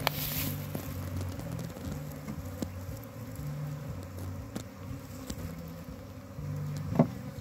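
Honeybees buzzing around an open hive box, several wingbeat hums at slightly different pitches coming and going. A few light knocks of hands handling the wooden frame and comb, the sharpest about seven seconds in.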